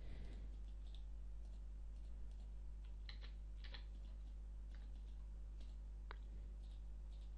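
A few scattered clicks of a computer mouse and keyboard, heard over a steady low electrical hum.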